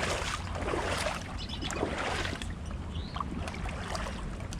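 Shallow creek water sloshing and splashing around someone wading and digging in the streambed.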